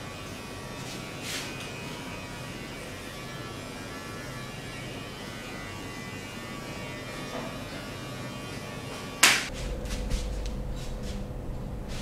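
Steady electric buzzing hum with a faint click about a second in, then one loud, sharp crack about nine seconds in, after which a lower, louder hum carries on.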